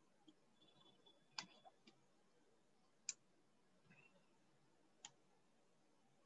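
Near silence broken by a few sharp computer mouse clicks, three of them clearest, spaced about one and a half to two seconds apart.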